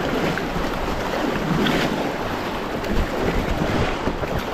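River water rushing and splashing around a raft, with wind buffeting the microphone.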